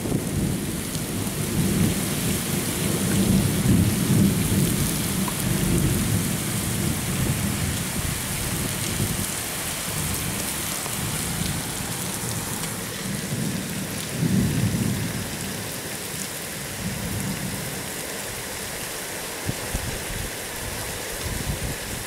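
Strong gusty cyclone wind buffeting the microphone: low rumbling gusts swell a few seconds in and again about two-thirds through, then ease, over a steady high hiss.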